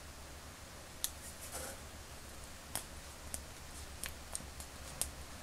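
Faint handling noise: a handful of small, scattered clicks and light rustles as metal tweezers place a paper sticker onto a plastic action figure and fingers press it down.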